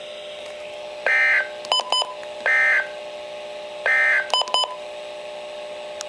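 NOAA weather radio receiver sounding the Emergency Alert System end-of-message code: three short digital data bursts about a second and a half apart, marking the end of the tornado warning broadcast. Quick electronic beeps come in twos and threes after the second and third bursts, from the radio's buttons being pressed.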